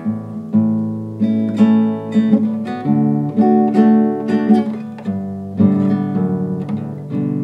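Acoustic guitar played slowly by a beginner: chords picked out with a new note or chord every half second or so, each left ringing.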